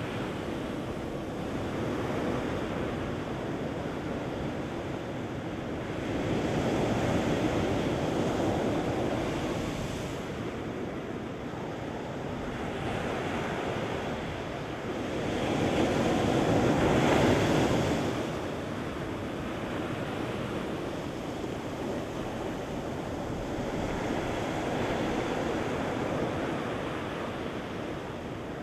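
Ocean surf washing up a sandy beach, rising and falling in slow surges as each wave runs in and drains back, the loudest surge about sixteen to eighteen seconds in.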